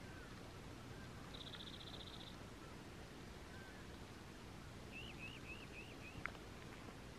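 Faint outdoor bird calls over a steady low hiss: a short buzzy trill about a second and a half in, then a run of five quick rising-and-falling chirps about five seconds in. A sharp click comes near the end.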